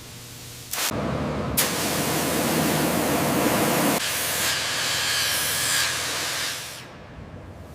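A spray hissing steadily for about six seconds. It starts sharply about a second in, turns brighter and thinner partway through, and fades away near the end.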